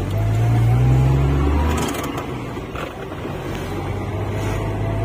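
Taxi van's engine running and tyre noise heard from inside the cabin as it drives along, the engine note strongest for the first couple of seconds, then easing off.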